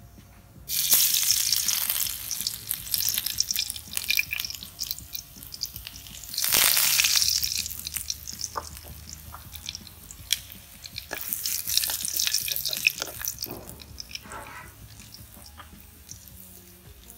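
Garlic and curry leaves sizzling as they hit hot oil in a wok. There are three strong hisses, about a second in, around six seconds and around eleven seconds, each fading, with scattered popping crackles between them.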